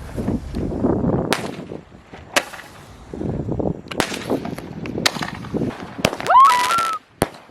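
Firecrackers and fireworks banging at irregular intervals, roughly one every second, over low rumbling wind noise on the microphone. About six seconds in comes a short rising whistle with a hiss, like a firework fizzing off.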